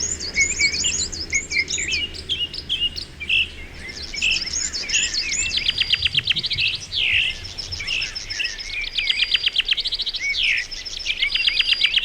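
Songbirds singing: quick repeated sweeping whistled notes, then from about five seconds in fast rattling trills alternating with downward-slurred notes.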